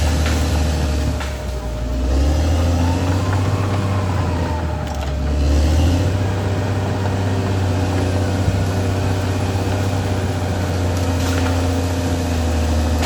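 Caterpillar D6R XL bulldozer's diesel engine working under load, a steady low drone that swells and eases as the machine pushes. A faint whine rises and falls about a third of the way through.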